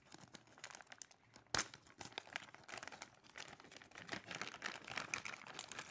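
Packaging of a disc lock being opened by hand: crinkling and rustling, with a sharp snap about a second and a half in.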